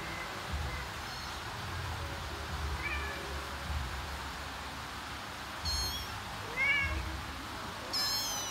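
A mother cat and her kittens meowing in short calls, the kittens' mews high-pitched; a few faint calls early on and clearer ones in the second half.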